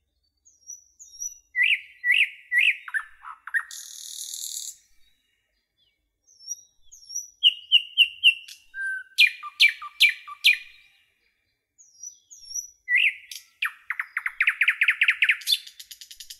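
Songbirds chirping and singing in short whistled phrases, with a fast trill near the end. The song breaks off into silence twice, about five and eleven seconds in.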